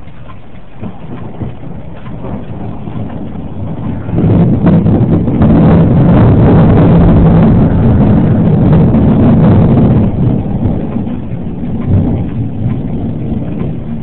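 Rolling thunder: a deep rumble swells suddenly about four seconds in, stays loud for several seconds, then slowly dies away.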